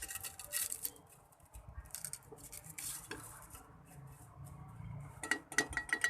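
Eating utensils clinking and scraping against a plate, with a quick run of sharp metallic taps near the end.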